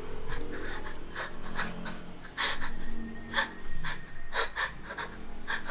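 A woman breathing in short, uneven gasps in distress, each breath sharp and audible.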